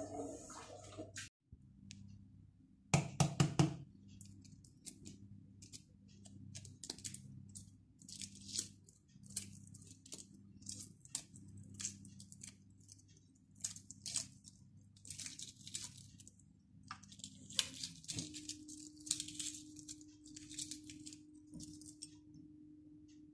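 Hard-boiled egg cracked with a few quick knocks about three seconds in, then its shell peeled off by hand in many small, irregular crackles and snaps.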